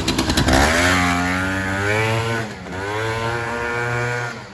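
Piaggio Zip scooter fitted with a swapped-in 125cc Runner engine, accelerating hard away with a climbing engine note. The note dips about two and a half seconds in, climbs again, then falls away near the end.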